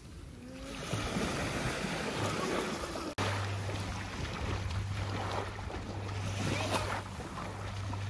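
Small waves washing on a sandy shore, with wind buffeting the microphone. After a cut about three seconds in, a steady low hum runs under the wash of the water, along with splashing from someone wading in the shallows.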